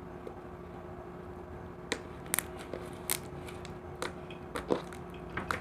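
Fluffy stretchy slime being squeezed and pulled by hand, giving a scatter of short sticky clicks and pops from about two seconds in, over a steady low hum.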